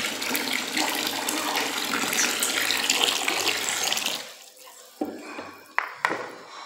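A thin stream of water pouring and splashing into a bowl of tejate liquid while a hand works the mixture, a steady splashing that stops about four seconds in. A few short knocks follow near the end.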